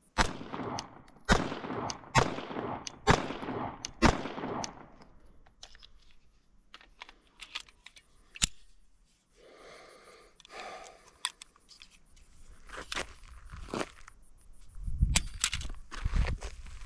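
Five handgun shots fired at a steady pace of about one a second, each followed by a ringing echo. Small handling clicks follow, and a few dull low thumps come near the end.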